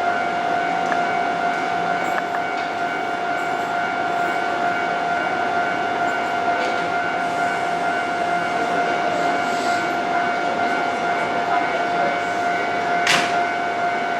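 A train standing at the platform gives a steady, unchanging high whine with overtones over a steady rushing noise. A single sharp click comes near the end.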